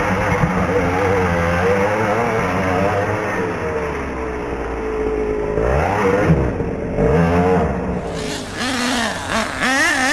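Small two-stroke engine of a radio-controlled monster truck revving up and down as it drives, its pitch rising and falling repeatedly, with a quick rise and drop about six seconds in.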